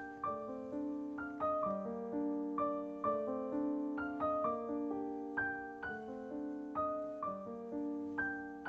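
Background piano music: single notes struck one after another, each ringing out and fading, over held lower notes in a slow, gentle melody.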